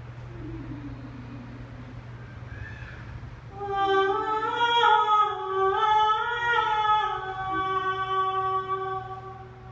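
A woman singing without words, unaccompanied, coming in about a third of the way through: a few wavering, sliding notes, then one long held note that fades near the end. A fainter, lower voice slides down briefly near the start.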